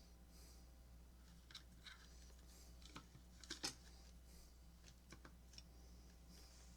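Near silence over a low steady hum, with scattered faint clicks and taps of small parts and leads being handled on a workbench; the loudest click comes a little after three and a half seconds in.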